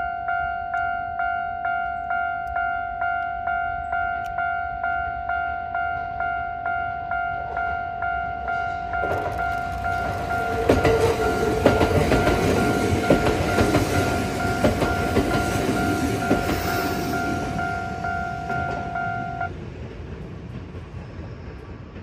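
Japanese railway level-crossing bell ringing about twice a second as a Kintetsu 1026 series electric train passes, its wheels rumbling and clacking over the track. The bell stops near the end as the train clears, and the train's sound fades away.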